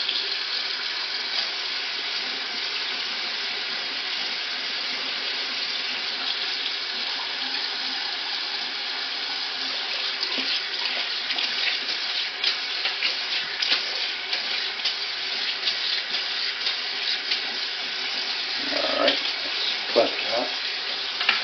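Hot water running steadily from a tap into a sink over a plastic fan grille cover, with a few louder knocks near the end.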